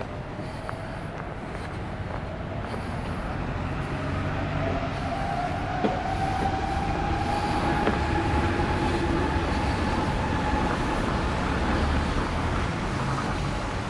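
A large vehicle passing: a low rumble with a high whine that rises slightly in pitch over the first few seconds and then holds, growing louder toward the middle.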